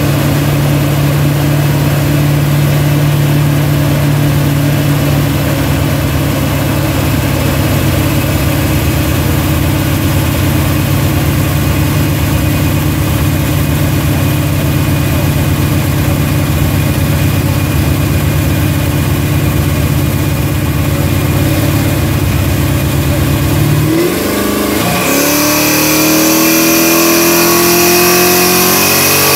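1968 Chevelle SS V8 running on a chassis dyno. It holds a steady engine speed for most of the stretch, then near the end the pitch dips sharply and climbs steadily as the engine is accelerated under load.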